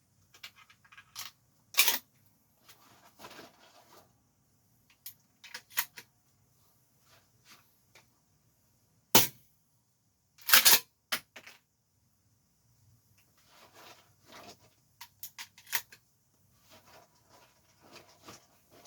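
APS CAM870 MK3 airsoft pump-action shotgun being reloaded by hand: scattered clicks and clatter of shells and the action. Sharp clacks stand out about two seconds in and about nine seconds in, and a quick pair follows near eleven seconds.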